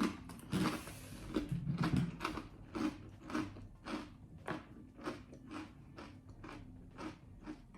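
A person biting into and chewing crunchy baked rice crackers, with crisp crunches at about two a second.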